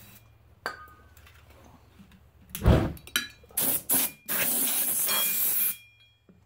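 Ether-style starting fluid sprayed into a lawn tractor tire's bead igniting with a loud whoomp about two and a half seconds in, as the fire is used to pop the bead back onto the steel rim. Short loud bursts follow, then a steady hiss for about a second and a half that cuts off suddenly.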